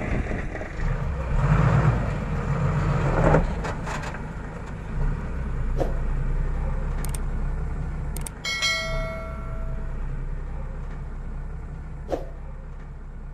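Diesel engine running steadily at idle, with a few scattered knocks. A short ringing tone sounds for about a second and a half, about two-thirds of the way through.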